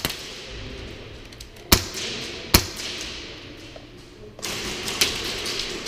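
Two sharp single cracks a little under a second apart, typical of airsoft gunfire during indoor play. From about four and a half seconds in, a steadier rustling noise sets in, with another crack in it.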